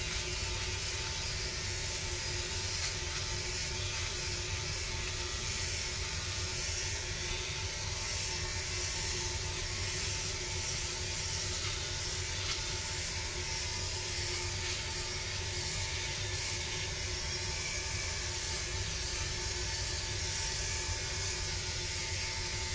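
Philips OneBlade electric trimmer running with a steady buzz and hiss while shaving beard stubble off the chin and jaw.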